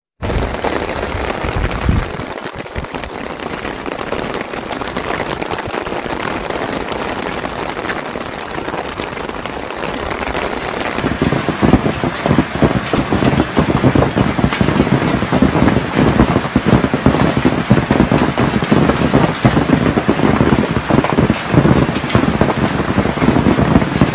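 Hailstorm: hailstones pelting down and striking hard surfaces in a dense, continuous clatter. About halfway through it becomes louder, with many more distinct impacts.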